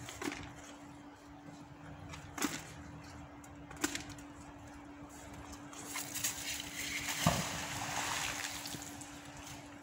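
River water splashing and sloshing as a fishing magnet on a rope is worked in the river, with a few sharp knocks, the loudest about seven seconds in. The splashing swells from about six seconds in and dies away near the end.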